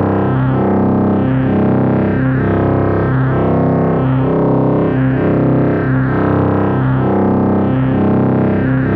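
Software synthesizer from Arturia's V Collection playing a low, repeating riff: a short phrase of stepping notes that loops about every two seconds.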